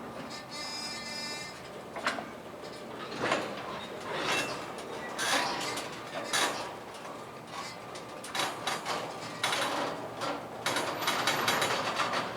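CSX freight train crawling past: irregular metallic clanks and knocks from wheels and cars over the rails, with a high metallic squeal in the first second or so.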